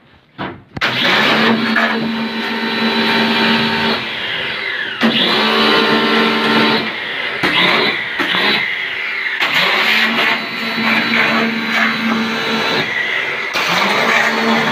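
Yojimbo 1400 W electric pressure washer's motor and pump running with a steady hum and hiss, cutting out and starting again several times, each start rising briefly in pitch. The machine stops and restarts as the spray-gun trigger is released and squeezed.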